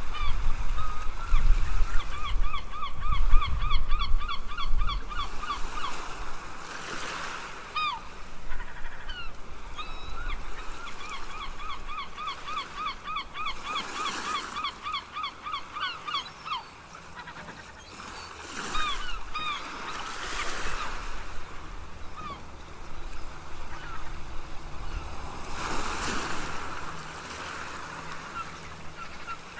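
Seagulls calling over breaking ocean waves. Two long runs of rapid laughing calls, about five a second, are followed by scattered single cries, while waves wash in and out several times.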